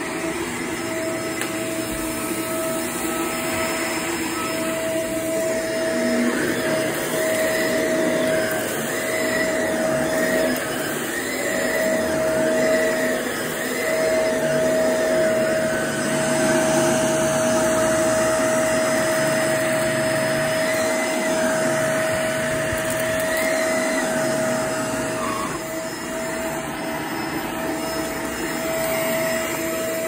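Shark vacuum cleaner running steadily over carpet: a constant motor tone with a fainter higher sound that wavers in pitch.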